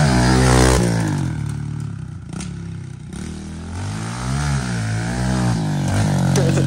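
Stock Kawasaki KLX110 pit bike's single-cylinder four-stroke engine revving as it is ridden. It peaks about half a second in, then eases off. It revs up and down again around four to five seconds in.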